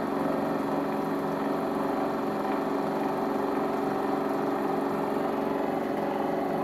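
Pulse motor and DC-motor-driven generator running together: a steady electric-machine hum with a regular pulsing.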